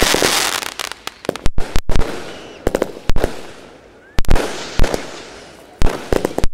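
Fireworks display going off: volleys of sharp bangs about every second and a half, each fading away before the next.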